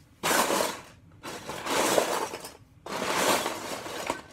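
Hands rummaging through loose LEGO Technic parts, the plastic pieces clattering and clinking against each other in three stretches with short breaks between them.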